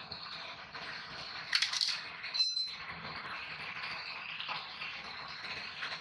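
Metal clinks from hand tools being handled: a quick cluster of light taps, then a single ringing clink about two and a half seconds in, over a steady background hiss.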